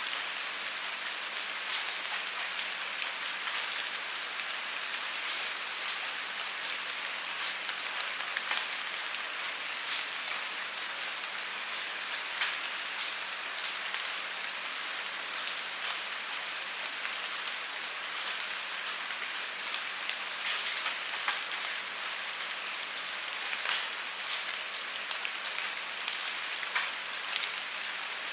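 Steady rain falling on a surface: an even hiss with scattered sharper drop impacts.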